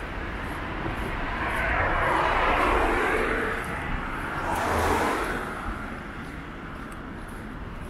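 Road traffic: two cars pass close by, the first swelling and fading over about three seconds, the second, briefer one peaking about five seconds in, then a steady low hum of traffic.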